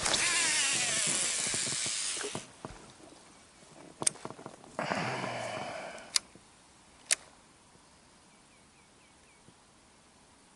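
Electric boat motor running in two short bursts, about two and a half seconds and then about a second, to bring the boat onto the fishing spot. A few sharp clicks come between and after the bursts.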